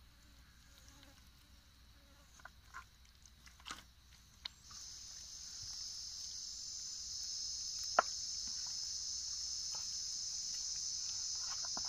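An insect's steady high-pitched buzzing call starts about five seconds in and holds without a break. A few faint clicks come before it, and one sharp tick near eight seconds in.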